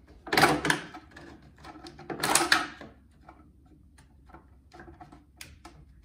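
Thin plastic bottles crackling and scraping as one cut bottle is pushed into the other: two loud crinkling scrapes, about half a second in and about two seconds in, then light clicks and taps of the plastic being handled.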